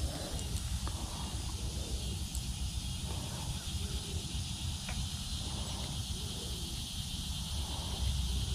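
Pond-side evening ambience: a steady high-pitched insect chorus over a low rumble, with faint calls repeating about once a second.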